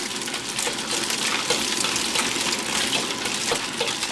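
Shredded dried scallops frying in a wok of hot oil: a steady, crackling sizzle.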